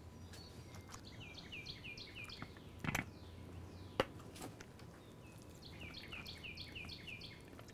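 A songbird singing two runs of quick, high, downward-sliding notes, each run lasting about a second and a half. In between there are two light knocks, about three and four seconds in, as a block of blue cheese is tipped into a glass mixing bowl.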